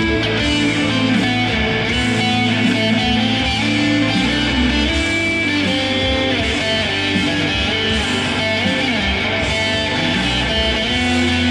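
Electric guitar played through an amplifier: held, overlapping notes over a sustained low bass tone that changes pitch every few seconds.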